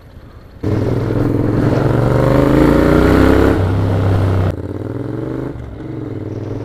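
Motorcycle engine coming in suddenly under throttle and pulling hard, its pitch rising steadily, then dropping back about four and a half seconds in as the throttle eases, leaving a lower, steady running note.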